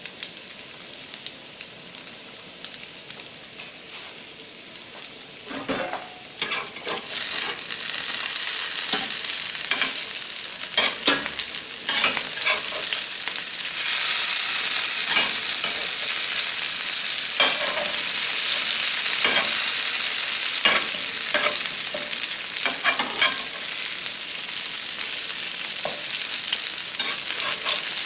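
Diced potatoes and scrambled eggs with ham sizzling as they fry, with a metal spatula scraping and tapping against the pans as the potatoes are turned. The sizzle grows louder about six seconds in and again around the middle, with scattered clicks of the spatula.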